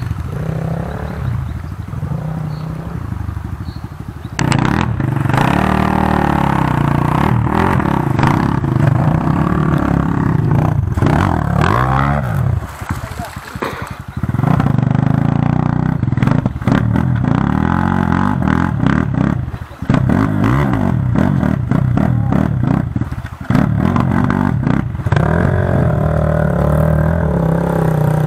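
Enduro dirt bike engine revving hard in repeated bursts, its pitch rising and falling under load as the bike is pushed and ridden up a steep muddy bank. It drops back briefly twice, about halfway and around two-thirds through.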